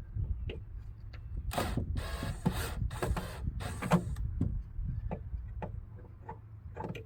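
Cordless drill/driver running screws into the coop's wooden panels in a run of about six short bursts, with scattered knocks and clicks of wood being handled.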